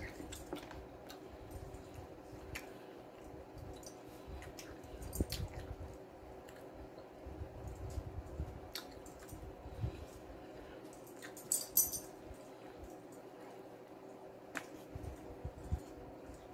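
Close-up eating sounds: wet chewing and mouth smacking with scattered small clicks, and one brief crisp sound about two-thirds of the way through.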